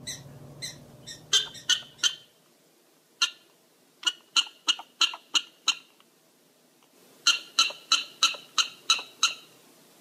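Prairie dog giving short, sharp, high-pitched barks in quick runs: a few about a second in, a single bark, then a run of six at about three a second, and a longer run of about eight near the end. A low rumble sits under the first two seconds.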